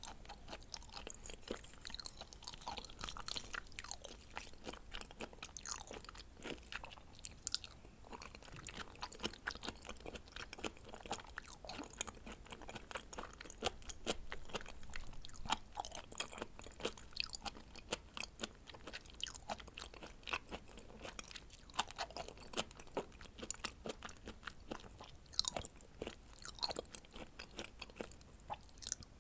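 Close-miked chewing of raw seafood sashimi: a steady run of small wet smacks and clicks of mouth and teeth.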